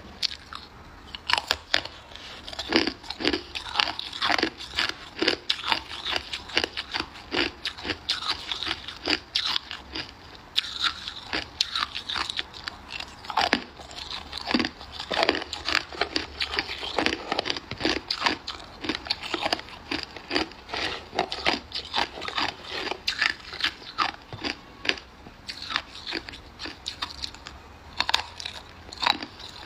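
Hard ice being bitten and chewed: a dense, irregular run of sharp crunches and cracks.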